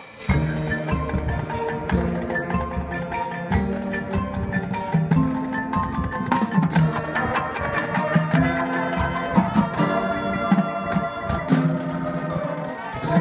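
High school marching band playing, with brass, drums and front-ensemble mallet percussion; the music comes in abruptly right at the start and plays on in full.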